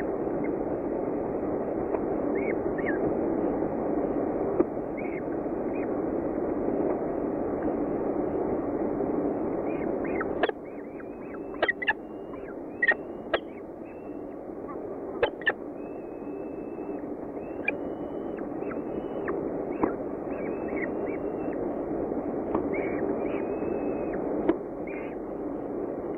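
Falcon chicks' thin, high begging calls and short chirps as the adult feeds them, over a steady low noise. From about ten seconds in, the low noise eases a little and several sharp clicks come in quick succession.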